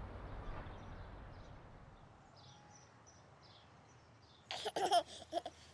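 Faint birds chirping over a soft outdoor background, with a short burst of babbling voices about a second before the end.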